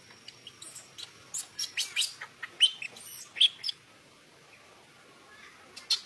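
Baby macaque giving a rapid series of short, high-pitched squeaks, some rising in pitch, that stop about four seconds in, with a couple more right near the end.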